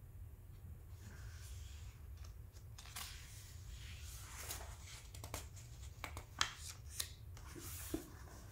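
Paper pages of a paperback book rustling and swishing as they are handled and turned, with a few sharp paper snaps in the second half, over a steady low hum.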